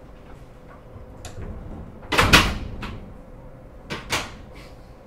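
Sliding passenger door of a stopped E127 series electric train working at the station: a loud sudden clunk and rush about two seconds in, then two smaller knocks near four seconds. Under it is the steady hum of the car at standstill.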